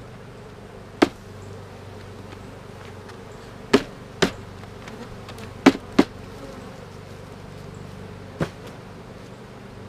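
Honeybees humming steadily around an open hive, with six sharp knocks of wooden hive parts and a queen excluder being handled and set down.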